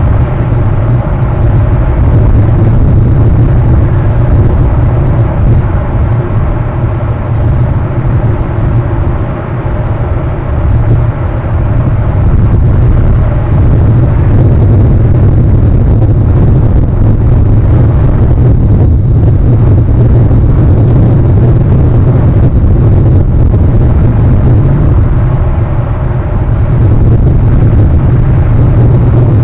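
Loud, steady low rumble of wind and surf on an outdoor camera microphone, with no distinct calls standing out.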